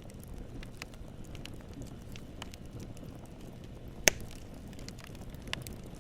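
Wood fire burning with a low steady rumble of flames and scattered small crackles, and one loud sharp pop of the wood about four seconds in.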